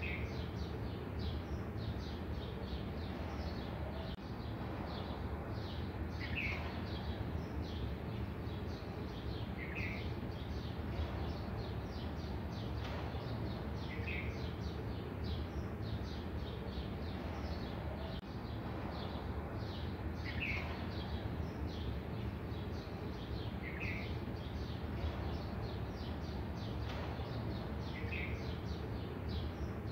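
Birds chirping over a steady low background noise: many quick chirps, with one short call repeated every three to four seconds.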